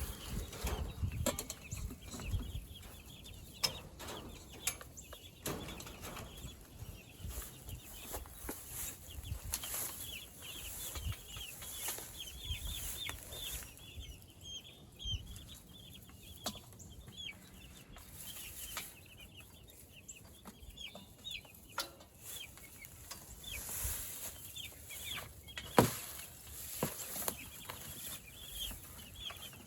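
A flock of meat chickens cheeping and clucking, many short high calls overlapping, with scattered knocks and rustling and one sharp knock near the end.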